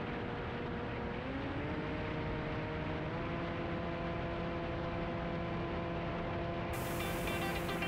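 Brushless electric motor (Cobra 2820, 1470 kV) spinning an 8x7 APC propeller on an FPV racing wing: a steady whine over rushing air. The pitch rises about a second in and steps up again around three seconds, as the throttle is opened further. Electronic music with a beat comes in near the end.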